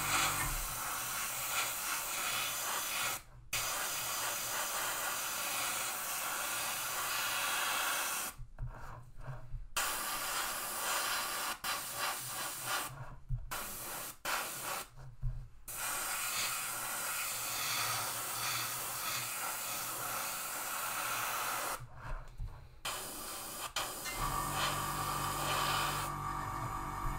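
Gravity-feed airbrush spraying paint: a steady hiss of air and paint through the nozzle, stopping briefly several times as the trigger is let off, while a light primer base coat goes down on a plastic model.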